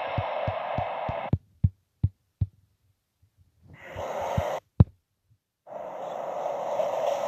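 Noise of a passing train with low thumps about three times a second, cut off abruptly after about a second. After a gap of silence broken by a few more thumps and a click, steady outdoor noise returns near the end.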